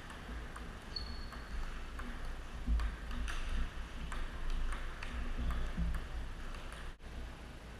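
Table tennis ball clicking off bats and tabletop in a rally: a quick, fairly even run of sharp ticks, two or three a second.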